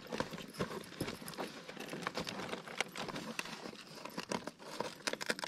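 Irregular light knocks, taps and rustling as things are handled on a boat's floor, with no steady sound underneath.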